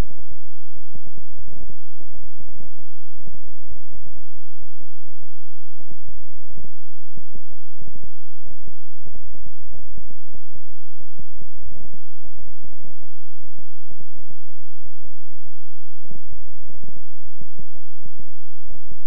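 Synthesized healing-frequency tone track: a steady low drone of stacked tones with a rapid, uneven low throbbing pulsing through it.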